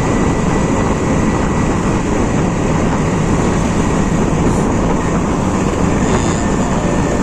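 Steady wind rumble on the microphone and road noise while riding a Honda Scoopy scooter at speed, loud and unbroken.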